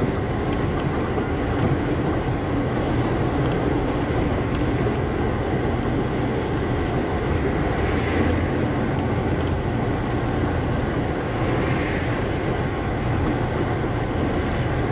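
A truck driving steadily: a continuous engine rumble with road noise, and two brief swells, about eight and twelve seconds in.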